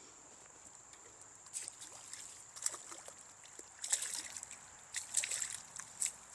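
Stream water splashing and dripping in irregular bursts, busier in the second half, over a steady thin high-pitched whine.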